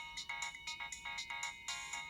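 Nokia 1650 mobile phone playing a ringtone: a quick electronic melody of short, separate notes, about four or five a second.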